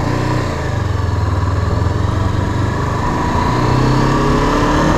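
Street motorcycle engine accelerating on a gravel road, its pitch climbing, dropping back a little about two seconds in, then climbing again. Wind buffets the helmet-mounted microphone.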